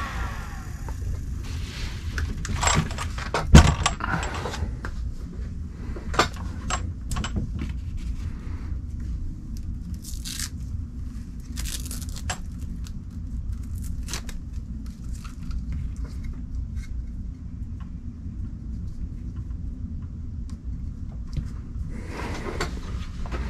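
Hands handling RC car parts and wiring on a workbench: scattered clicks, rustles and small plastic knocks, with one louder knock about three and a half seconds in, over a steady low hum.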